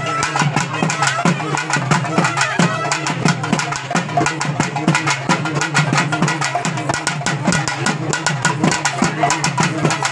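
A group of festival drummers beating drums with sticks in a fast, dense, unbroken rhythm.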